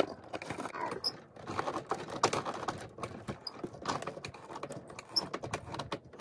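The Bratz Pad toy elevator's plastic dial being turned, giving a rapid, irregular run of clicks and rattles as the elevator car is wound back down.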